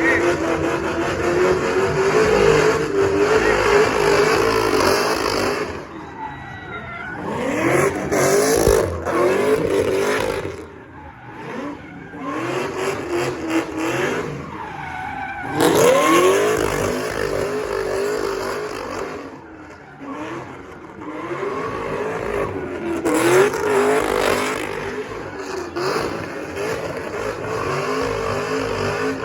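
A car doing spin-offs: its engine revving up and falling back again and again, with tyres squealing against the pavement. The sound drops away briefly a few times and then picks up again.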